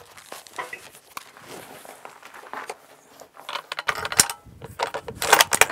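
Brass rifle cartridges clinking and clicking as they are handled and loaded into a bolt-action rifle's action. There are faint handling sounds at first, then two clusters of sharp metallic clicks, about four seconds in and again near the end.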